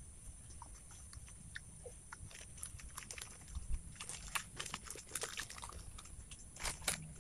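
Faint chewing of a mouthful of food: scattered small crisp clicks and crunches.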